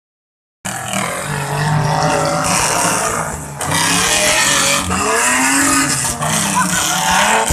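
Off-road vehicle engine revving hard, its pitch rising and falling repeatedly, starting about half a second in.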